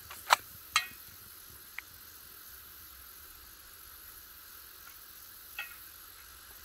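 Two sharp clicks about half a second apart just after the start, the second with a brief ringing edge. Then a few faint single ticks over a steady low hiss of open-field background.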